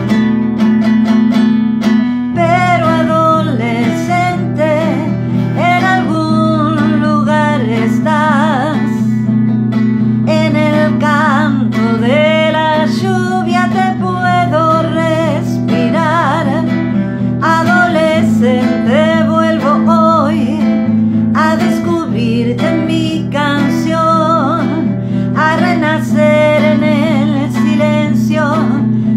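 A woman singing a song while accompanying herself on an acoustic guitar.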